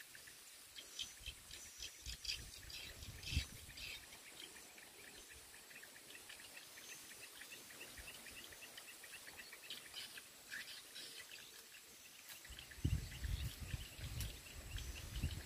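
Rural wetland ambience: many short chirping calls from birds and insects over a steady high insect hum. A low rumble comes in over the last few seconds.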